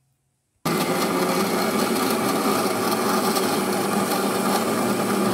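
Electric blender with a stainless-steel jar starting abruptly about a second in and running steadily at full speed, blending banana pieces, yogurt, ice cubes and sugar into lassi.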